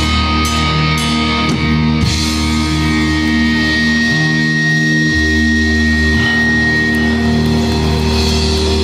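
Heavy metal band playing live: distorted electric guitars and bass hold sustained chords, with a few cymbal and drum hits in the first two seconds. Then the chords ring out at the close of the song, with a thin high tone held through the middle.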